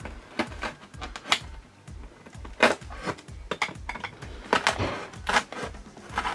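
Knife cutting through cardboard in short, irregular scraping strokes. Background music with a steady low beat runs underneath.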